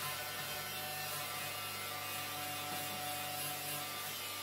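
Steady low electrical hum with a few held tones over a faint even hiss.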